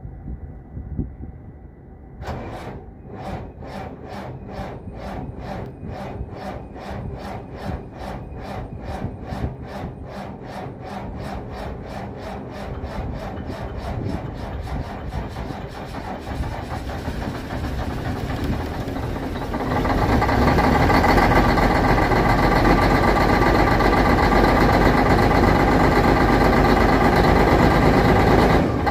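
Detroit Diesel Series 60 inline-six diesel cranking on its starter in the cold: a long run of even compression pulses, then the engine stumbles, catches and settles into a loud, steady run about 20 seconds in. It is a hard cold start that almost fails; the batteries are new, and the owner puts it down to the cold.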